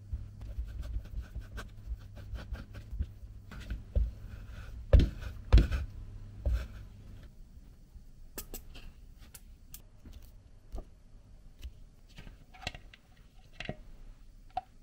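Wooden spatula scraping and pressing steamed kabocha pumpkin through a fine mesh sieve, in short scrapes and clicks, with several dull knocks around the middle. Later, lighter clicks and scrapes of a spatula against the sieve and a glass mixing bowl.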